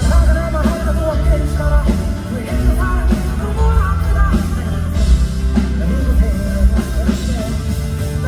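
Live band playing a rock-style song with drums, bass and electric guitar, a singer's voice carrying the melody over it.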